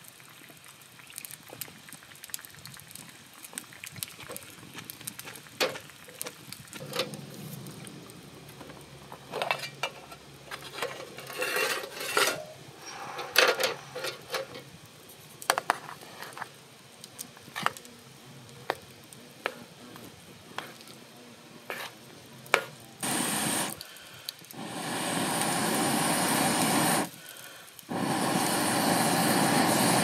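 Clinks, taps and short scrapes of a wooden spoon against an aluminium mess tin and other camp cookware as cooked rice is scooped out. Near the end, two long stretches of loud, steady rushing noise.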